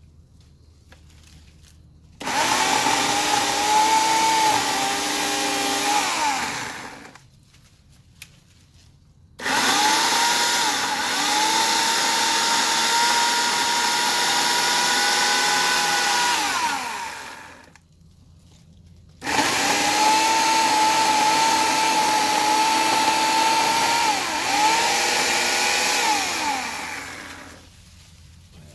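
Portland 14-inch electric chainsaw run three times: each time the motor and chain spin up at once to a steady high whine, with the pitch dipping slightly at moments, then wind down when the trigger is released.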